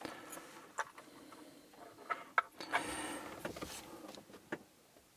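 Light clicks and taps of small metal lock parts being handled, four or five sharp ones in all. A faint whirring runs in the middle.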